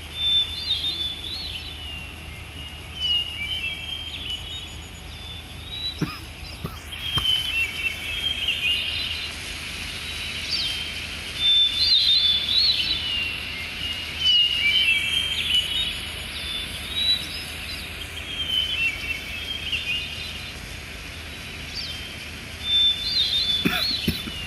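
Small birds chirping and twittering in short high bursts, over a steady background hiss, with a couple of faint clicks.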